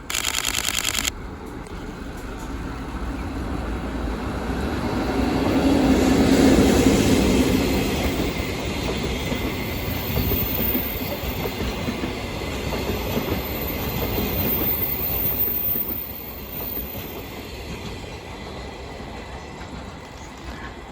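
EF65 electric locomotive pulling out with a rake of unpowered new subway cars in tow, its wheels clacking over rail joints. A loud blast about a second long opens the sound, then the rumble of the passing train builds, is loudest about six seconds in, and slowly fades.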